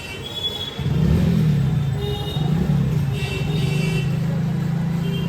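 A motor vehicle's engine running close by, coming in loud about a second in, its pitch wavering at first and then holding steady.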